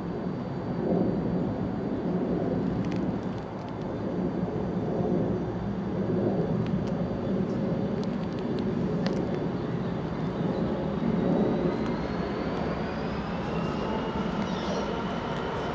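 Steady low rumble of background traffic, with a whine rising in pitch from about ten seconds in as a train approaches along the line.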